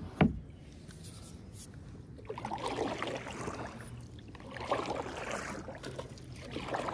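Kayak paddle strokes in pond water: three swells of splashing and trickling as the blade dips and lifts, a little over a second apart. A single sharp knock just after the start.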